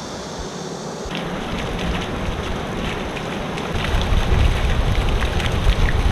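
Water gushing from an upended large plastic water jug and splashing onto a river's surface, starting about a second in and getting louder and heavier in the second half.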